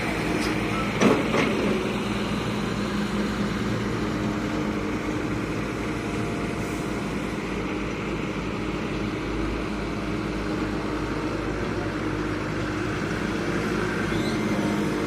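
Heavy diesel earthmoving machinery running steadily, with one sharp metallic clank about a second in.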